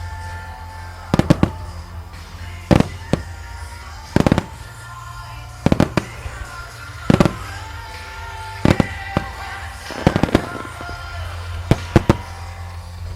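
Aerial fireworks shells bursting in sharp bangs about every one to one and a half seconds, several coming in quick doubles or clusters, over the music played for the display.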